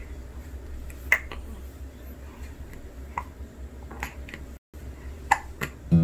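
Newborn baby hiccupping: a series of short, sharp hiccup clicks, about five of them at roughly one-second intervals, over a low room hum.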